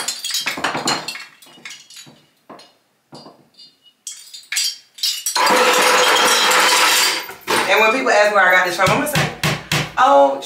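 Scattered light clinks and knocks of small hard objects being handled, then a steady hiss lasting about two seconds. Background music with a wavering melodic line and a regular beat starts in the last few seconds.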